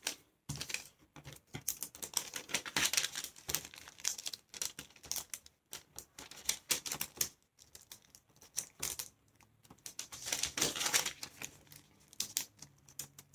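Thin kite paper being folded and creased by hand: irregular crinkling and rustling with short clicks and taps as fingers press and run along the folds. It is busiest a couple of seconds in and again near the ten-second mark.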